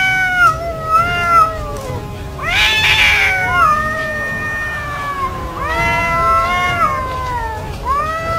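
Domestic cats yowling at each other in a face-off: about four long, wavering caterwauls, one after another, the threatening calls cats give before a fight.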